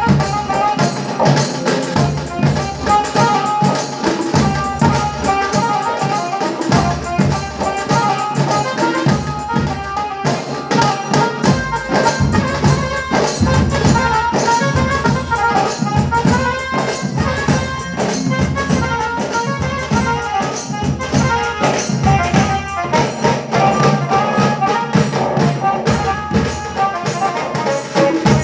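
Band music with brass instruments over dense, fast percussion, playing without a break.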